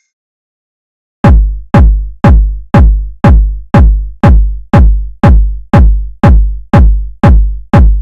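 Electronic kick drum from a drum machine beating a steady pulse of deep thumps, about two a second, each one dropping in pitch as it fades. It starts about a second in, after silence.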